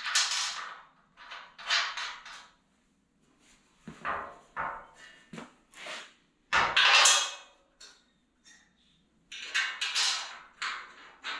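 Metal clanks and rattles of bolts and a steel suspension crossmember being fitted and bolted to a Chevy C10 truck frame by hand, in short bursts with pauses, the loudest about seven seconds in with a dull thud.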